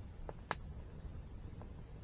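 Wood campfire crackling: a sharp pop about half a second in, a fainter one just before it, and a few soft crackles later, over a low steady rumble.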